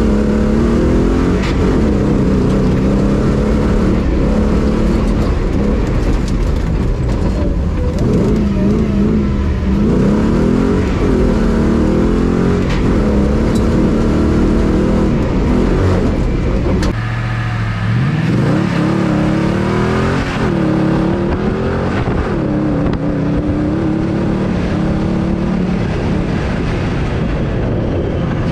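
Off-road competition car's engine revving hard under load on a rough dirt track, its pitch climbing and falling back again and again with the throttle, over a steady low rumble. About two-thirds of the way through the note drops abruptly and then climbs again from low.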